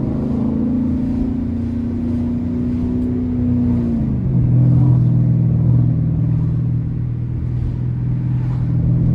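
Dodge R/T's 5.7-litre HEMI V8 exhaust roar, held at steady revs, then dropping to a lower steady drone about four seconds in.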